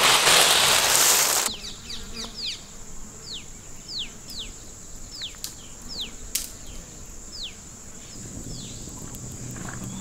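Hands stirring a tray of dry macaroni, a loud dry rustle, for the first second and a half. Then outdoor ambience: a steady high insect buzz with a series of short falling bird chirps and a couple of sharp clicks near the middle.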